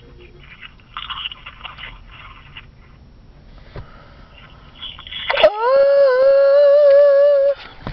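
A long, high-pitched held vocal note that slides up at the start and then holds steady for about two seconds, in the second half.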